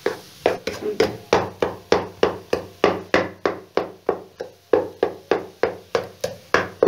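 Spatula knocking against a non-stick wok about three times a second as thick besan halwa is stirred and roasted, each stroke leaving a short ringing note from the pan.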